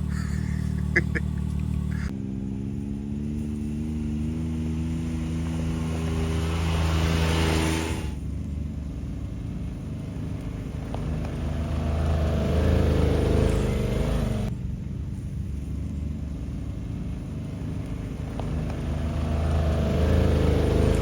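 Vehicle engines running in a few short cuts. First a steady engine hum, then an engine pulling away with its pitch slowly rising, then the low steady rumble of vehicles driving.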